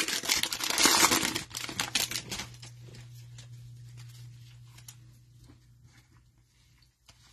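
Plastic-foil wrapper of a football trading-card pack crinkling and tearing as it is pulled open, for the first two and a half seconds or so. After that, only a low steady hum and a few faint clicks of cards being handled.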